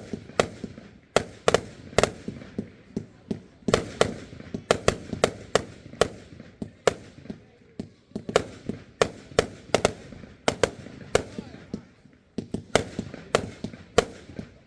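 Fireworks display shells bursting in a rapid, irregular run of sharp bangs, about two or three a second, each with an echoing tail.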